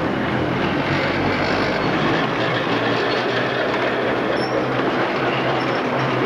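Sóller electric tram and its trailer cars rolling past on street track: a steady rumble of wheels running on the rails.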